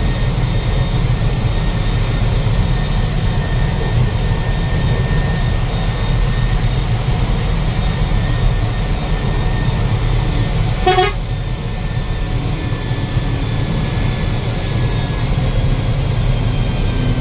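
Steady road rumble of a moving bus, with a single short vehicle-horn toot about eleven seconds in.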